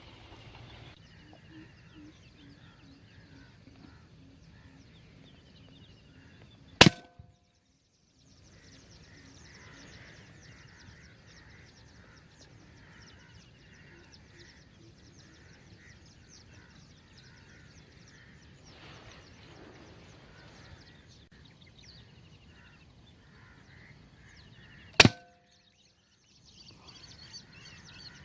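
Two sharp shots from a PCP air rifle, about eighteen seconds apart, the sound cutting out briefly after each. Between them, faint outdoor ambience with small bird chirps.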